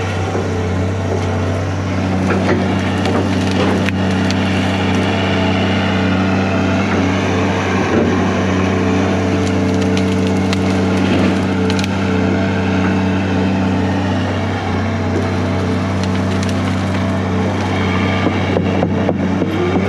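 John Deere 250G LCR excavator's diesel engine running steadily as it crushes brush and tree limbs, with scattered cracking and splintering of wood. The engine note rises near the end.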